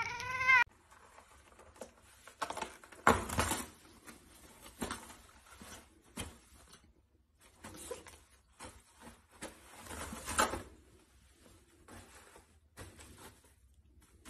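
A cat's meow, rising in pitch, ends about half a second in. Then a black cat claws at a toilet-paper roll, making irregular bursts of paper rustling and ripping with short pauses between.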